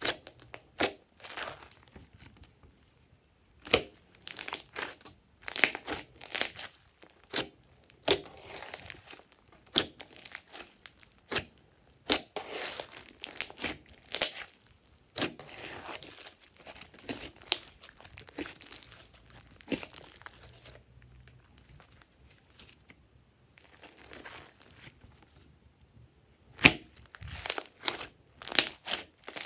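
Hands squishing, folding and stretching glossy slime: irregular sticky squelches with many sharp little clicks and pops. It goes quieter for a few seconds past the middle, then louder pops come in quick succession near the end.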